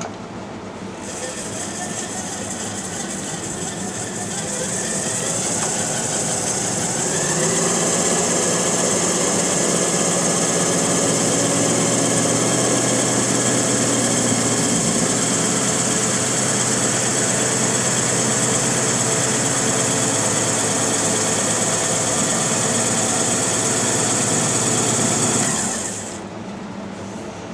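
Cue lathe motor spinning a linen-wrapped cue butt while a linen press is held against the wrap to flatten it. The lathe starts about a second in, speeds up over the next few seconds, runs steadily with a high hiss over its hum, and stops just before the end.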